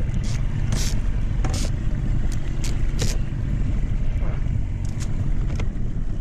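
Tracker outboard motor running steadily at trolling speed, a low drone, with about ten short, sharp noises on top.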